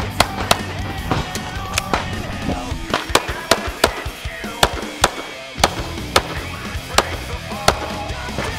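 Rapid pistol fire in a practical shooting stage, sharp shots coming at uneven intervals of roughly a third to half a second, over background music.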